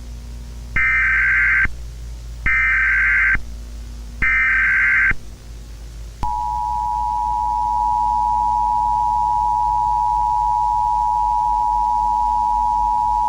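Emergency Alert System broadcast tones: three short bursts of SAME header data squeal, each about a second long, then the steady two-tone EAS attention signal starting about six seconds in. A low hum runs underneath.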